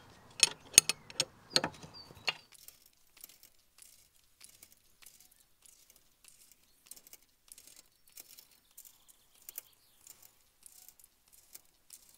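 Hand tools clicking and clinking on the steel undercarriage of a mini excavator as bolts are fitted and fastened: several sharp clicks in the first two seconds, then faint, scattered light ticks.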